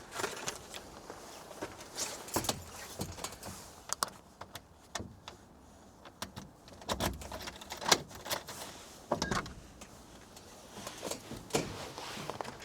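Keys jangling and clicking in a door lock, with scattered knocks and rustles as the dome's door is unlocked and worked open.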